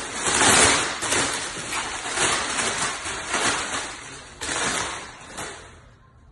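Gift wrapping paper being torn and crumpled off a present: a series of rustling rips, about one a second, dying away near the end.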